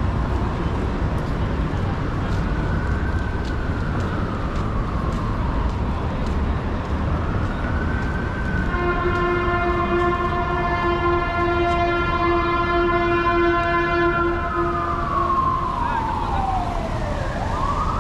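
Emergency vehicle siren wailing in slow rising and falling sweeps over city traffic noise. About halfway through, a long steady horn blast sounds over it for about six seconds.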